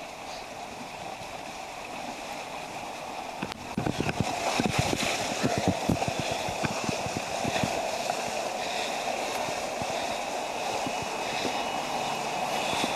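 Floodwater rushing and splashing as vehicles drive through a flooded road. About four seconds in, a run of irregular splashes and knocks starts over the steady wash of water.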